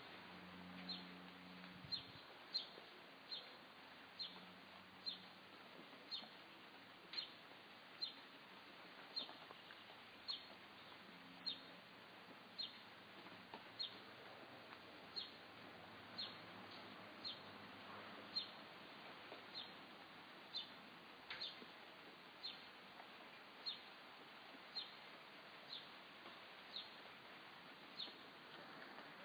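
A bird repeating one short, high, falling chirp at a very even pace, about once a second, over a faint steady hiss.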